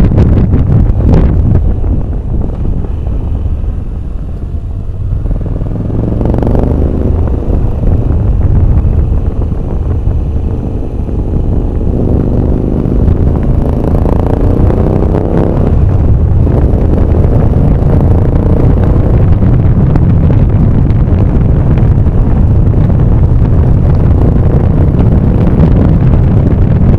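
Heavy wind buffeting on the microphone of a moving vehicle, with an engine note rising and falling in pitch, clearest around the middle. The wind eases for a few seconds near the start, then holds steady and loud.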